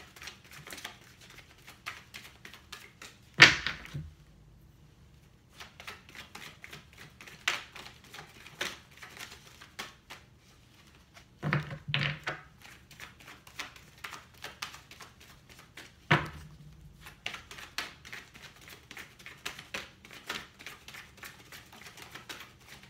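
A deck of oracle cards being shuffled by hand: a rapid patter of card slaps and flicks with short pauses, and a few louder knocks about three and a half, twelve and sixteen seconds in.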